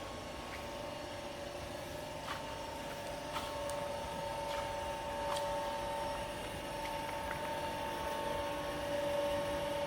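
Heidenreich & Harbeck Hanseat 480 centre lathe running under power: a steady mechanical whine with a few light clicks, growing slightly louder in the last few seconds.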